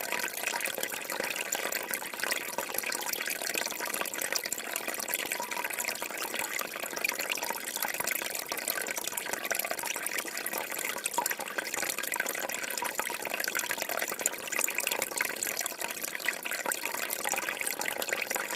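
Waterfall: water falling and splashing steadily, a dense even rush of small splashes with little low rumble.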